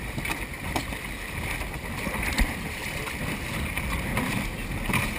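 Choppy open water sloshing against the hull of a boat and a sea kayak alongside it, over a low steady rumble.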